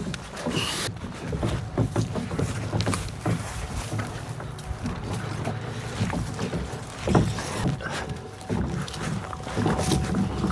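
A plastic kayak being hauled over branches and brush: irregular scraping, knocking and crackling of the hull and twigs, with heavy handling rumble.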